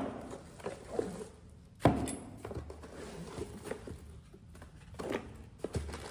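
Handling and unpacking a new paint spray gun kit: a few irregular knocks and clunks, the loudest about two seconds in, with softer handling and rustling noise between.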